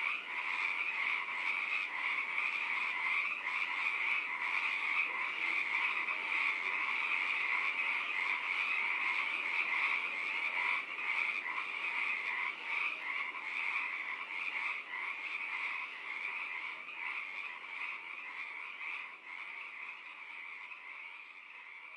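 A dense, continuous chorus of many calling animals: a mass of rapid, overlapping pulsed calls that fades away over the last few seconds.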